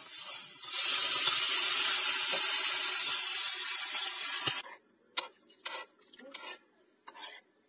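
Grated carrots sizzling in hot ghee in a kadhai while being stirred: a loud, even hiss that cuts off suddenly a little over four seconds in. After that, only a few light taps of the ladle in the pan of milk and carrots.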